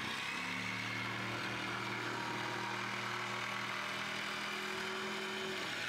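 Handheld power saw cutting into a plywood wall panel, its motor running at a steady pitch and winding down near the end.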